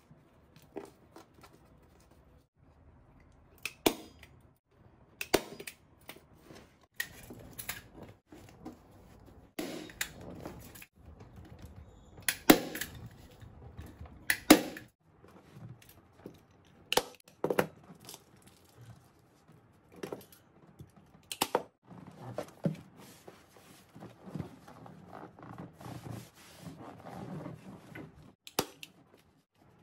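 Hand-held manual staple gun driving staples through upholstery fabric into a wooden chair seat board: about a dozen sharp snaps at irregular intervals, with the fabric rustling as it is pulled taut between shots.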